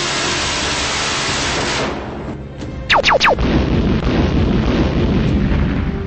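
A ship's Phalanx close-in weapon system firing a sustained burst, a dense roar that cuts off about two seconds in. About a second later come three quick falling whistles, then a loud deep rumble like an explosion, with music underneath.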